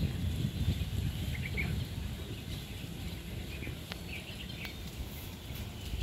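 Scattered short bird chirps over a low, uneven rumble that fades a little after the first couple of seconds, with a couple of sharp clicks near the end.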